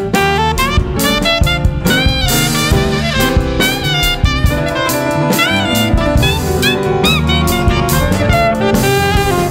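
Live jazz band: an alto saxophone plays a lead line with scooped, bending notes over drum kit and bass.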